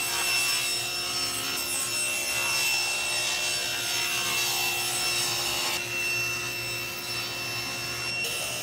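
A table saw running as its blade cuts through a plywood panel: a steady motor whine under the hiss of the cut.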